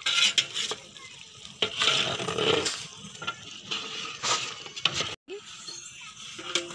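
A long metal ladle stirring and scraping in a large aluminium pot of simmering curry, in irregular bursts, the loudest near the start and around two seconds in.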